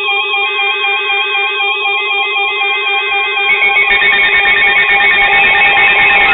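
Several weather alert radios sounding their alarms at once, each a rapid warbling beep that flips between two pitches, stacked into one loud electronic alarm; more tones join about three and a half seconds in. The alarms signal a newly received weather warning.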